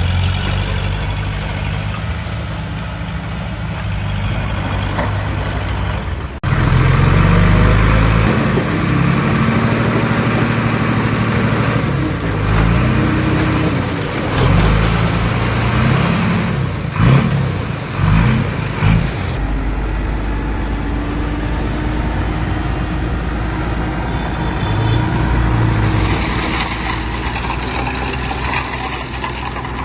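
Heavy diesel earthmoving machinery running, the engine note rising and falling repeatedly as it revs under load. The sound changes abruptly about six seconds in and again near nineteen seconds.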